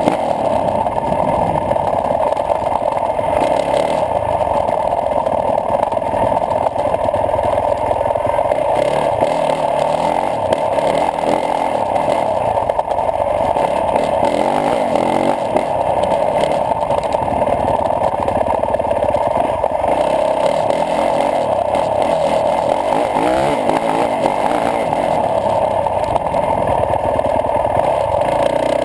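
Yamaha YZ450F's single-cylinder four-stroke motocross engine running continuously under way, the revs rising and falling as the bike is ridden.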